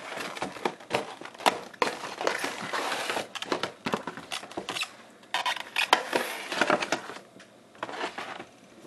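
Cardboard box and clear plastic display case of a die-cast model being handled and pulled apart: scraping, crinkling and a string of sharp clicks and knocks, quieter near the end.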